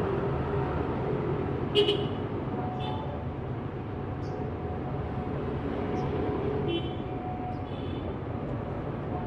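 Steady rumble of road traffic, with faint held horn toots now and then and a few short high chirps.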